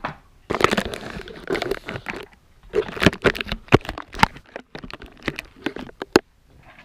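Close handling noise on a camera taped to a toy R/C blaster mech: fingers rubbing and knocking on the camera and tape, a rapid run of clicks and crackles. It ends with a sharp click about six seconds in as the mech is set down on the floor.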